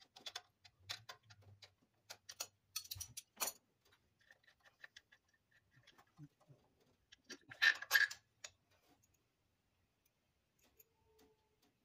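Ratchet wrench clicking in quick strokes while working loose an A/C compressor mounting bolt, with two louder clanks about eight seconds in.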